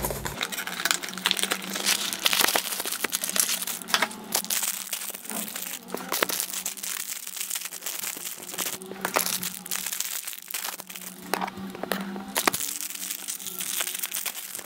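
Plastic wrappers of Barni sponge-cake bears crinkling and tearing as they are opened by hand: a continuous irregular crackle with many small sharp snaps.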